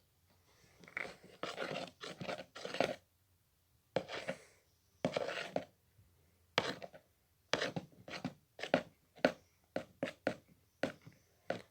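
Fluffy slime mixture being stirred in a bowl with a utensil while activator is worked in, a run of short, irregular scraping and squelching strokes, roughly one or two a second, starting about a second in.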